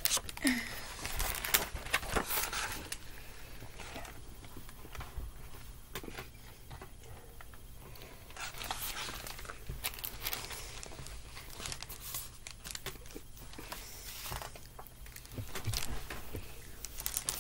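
Rustling and brushing of a picture book's paper pages and cover as it is handled close to the microphone, in several scattered spells.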